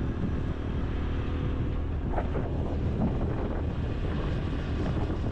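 Motorcycle engine running steadily at road speed, with wind buffeting the microphone as the bike rides along.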